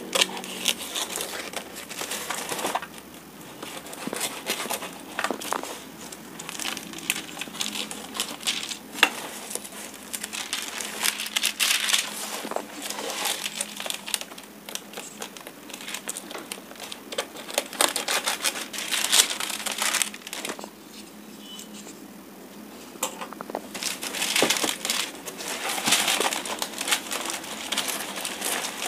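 Clear plastic wrapping on a cardboard toy box being slit with a utility knife and peeled off, crinkling and crackling in irregular rustles. There is a short quieter lull about two-thirds of the way through.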